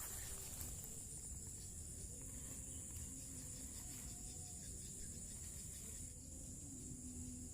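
Evening insect chorus: a steady, high-pitched chirring that holds unbroken, with faint low tones wavering underneath.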